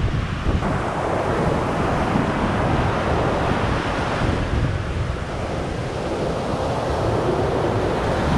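Ocean surf breaking and washing up the sand close to the microphone, with wind rumbling on the microphone.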